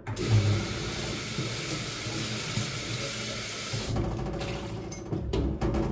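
Water running from a kitchen tap into a glass jug for about four seconds, then turned off abruptly, followed by a few light knocks near the end.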